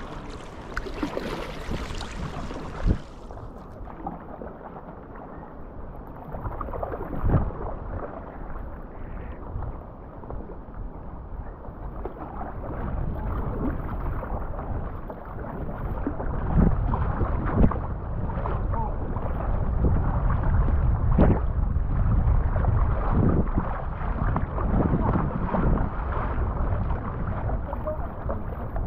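Sea kayak under way: water washing and splashing against the hull and paddle blades at irregular strokes, with wind rumbling on the microphone that grows stronger about halfway through.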